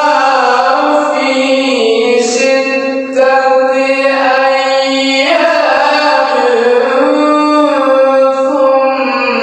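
A male qari's voice reciting the Qur'an in melodic tilawah style, drawing out long ornamented notes that step and slide in pitch, with a brief breath break about three seconds in.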